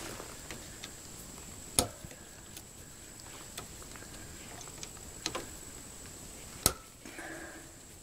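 Sharp clicks and light taps from hands working at a well pump pressure switch's wiring terminals: three louder clicks spread through, among fainter ticks.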